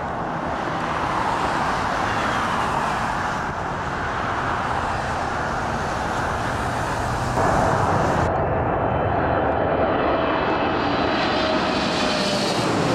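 Jet airliner noise: first a steady, distant rush of jet engines. About seven seconds in it gives way to a louder roar from a twin-engine widebody jet flying low overhead on landing approach, its engine whine sliding down in pitch as it passes.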